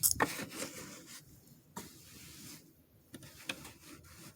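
Irregular rubbing and scraping handling noises with a few sharp clicks, loudest at the start, from fabric and the handheld phone being moved about. There is no steady run of machine stitching.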